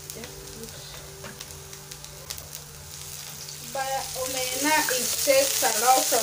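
Dried omena frying in a pan, crackling softly at first; as cooking oil is poured in over the fish about two-thirds of the way through, the sizzle grows into a louder, hissing fry. A melodic voice, singing, starts about four seconds in and is the loudest sound from then on.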